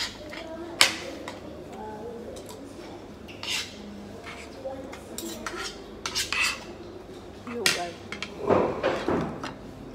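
Spoons clinking and scraping against dinner plates as two people eat, with a sharp clink about a second in and a busier run of scrapes and knocks near the end.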